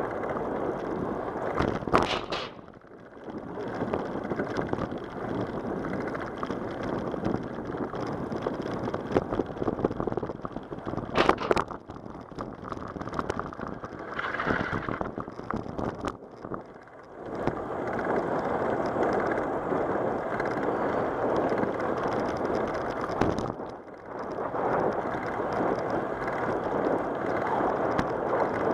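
Wind rushing over the microphone of a camera on a moving bicycle, mixed with tyre noise on the trail surface. Two sharp knocks come about 2 and 11 seconds in, and the rushing drops away briefly three times.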